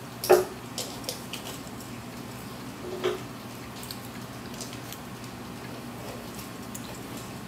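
Haircutting scissors snipping through wet hair: a few short, sharp snips, the loudest about a third of a second in, with smaller clicks just after and another snip about three seconds in.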